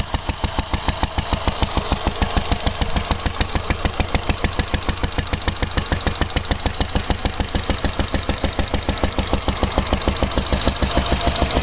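Lister D single-cylinder air-cooled stationary engine running steadily, with a rapid, even exhaust beat.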